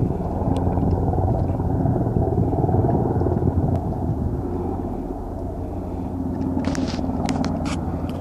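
Two military helicopters flying over, their rotors and engines making a steady low drone. A few sharp clicks come about seven seconds in.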